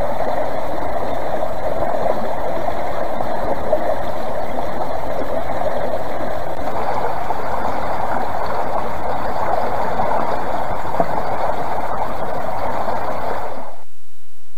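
Creek water rushing and splashing over a submerged log, a steady rushing sound, recorded through an AKASO EK7000 Pro action camera in a case drilled to let sound reach its microphone. It cuts off suddenly near the end.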